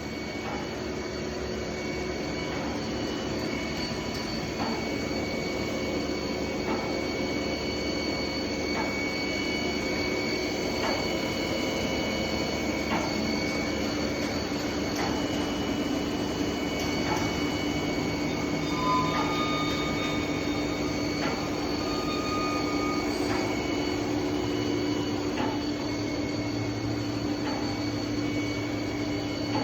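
Hurco BMC40/M CNC machining center running: a steady mechanical hum carrying several high whining tones, with a faint click about every two seconds.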